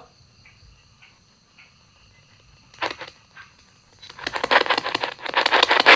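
Spirit-box radio scanning: a few faint ticks, then from about four seconds in a rapid, choppy stream of static as the device sweeps through stations.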